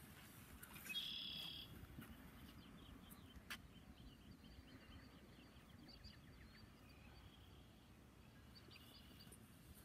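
Near silence: faint outdoor ambience with a few faint high chirps and one brief high-pitched call about a second in.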